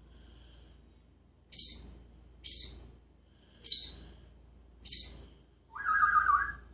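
Parrot giving four short, high calls about a second apart, then a longer, lower, wavering call near the end.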